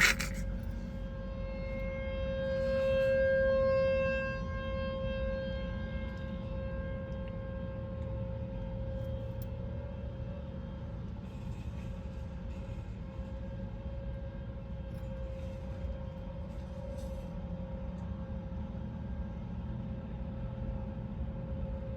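Outdoor civil-defense warning siren sounding a steady tone for a tornado warning. It swells louder about two to four seconds in, then holds steady.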